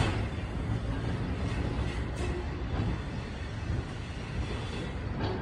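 PCC streetcar approaching slowly along the track: a steady low rumble with a few faint clicks.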